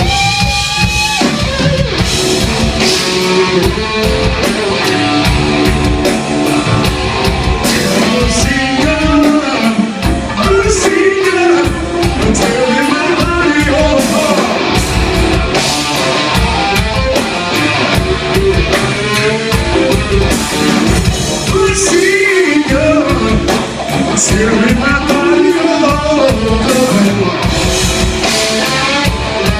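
Live rock band playing, with electric guitar, bass and drum kit; a lead line bends up and down in pitch over the band.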